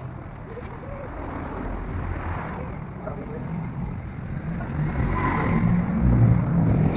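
A motor vehicle's engine running, growing louder about five seconds in.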